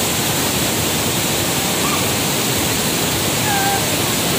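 Loud, steady rush of white water: a mountain stream pouring over boulders below a waterfall.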